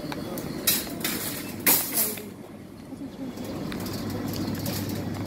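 A shopping cart rolling over a tiled supermarket floor, making a steady low rattle, with two brief rustling scrapes about a second and two seconds in.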